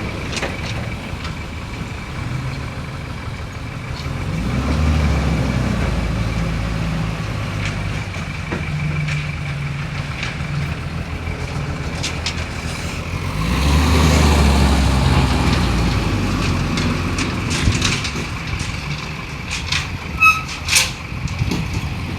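Heavy diesel engine of a truck or backhoe running, swelling in revs twice. Two short sharp sounds come near the end.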